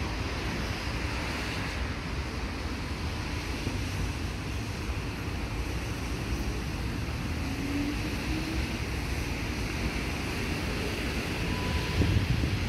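Wind buffeting the microphone: a steady rumbling hiss that turns louder and gustier near the end.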